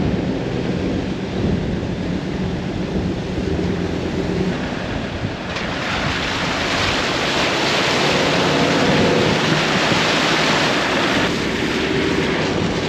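A four-wheel drive running across wet beach sand, its engine and tyres steady at first. About five seconds in, a loud rush of water spray joins as the tyres plough through a shallow creek crossing; it lasts about six seconds and then eases. Wind buffets the outside-mounted microphone throughout.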